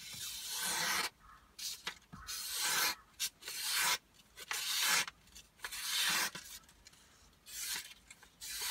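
Mora Classic knife blade slicing through a sheet of paper, a run of about six or seven short rasping swishes, each half a second to a second long. It is a paper test of sharpness: the freshly honed edge cuts cleanly without catching.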